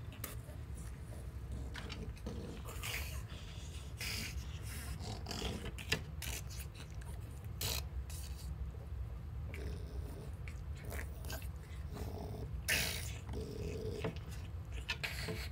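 Two dogs play-wrestling on a rug: irregular breathing, snuffling and mouthing noises with scuffling and a few sharp clicks, over a steady low hum.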